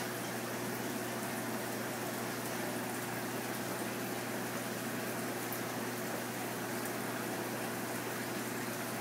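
Steady rush of circulating aquarium water, with a low, constant pump hum underneath.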